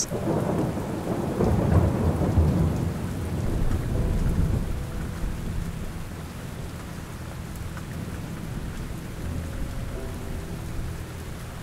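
Thunder rumbling over steady rain: the rumble is loudest in the first few seconds and fades out by about the fifth second, leaving the rain alone.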